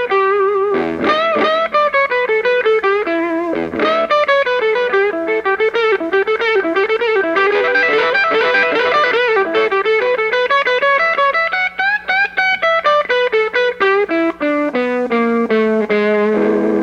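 Electric guitar solo with some overdrive, playing quick runs of single notes with bent and wavering notes.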